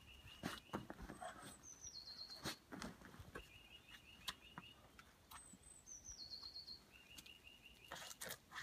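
Songbirds singing in repeated phrases, a rapid trill of short even notes and a phrase that steps down in pitch, each coming back every few seconds. Faint scuffs and knocks come and go underneath.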